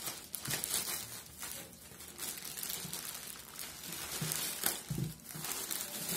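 Plastic courier mailer bag crinkling and tearing as it is ripped open and pulled apart by hand, in irregular crackly rustles. A dull bump about five seconds in as the cardboard box inside is drawn out.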